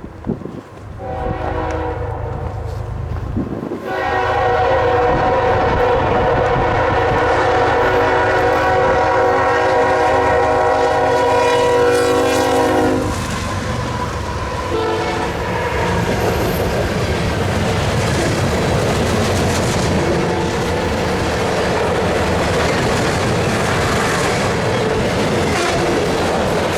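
A K5HL five-chime air horn on a CSX ES44AH freight locomotive sounds a short blast and then a long one of about nine seconds. After the horn stops, the locomotives and freight cars rumble past with wheels clacking over the rail joints.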